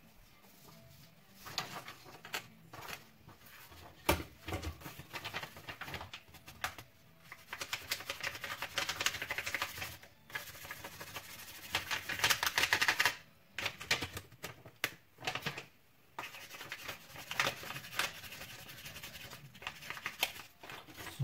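Irregular clicking, tapping and rustling of small parts being handled, with denser scraping stretches in the middle.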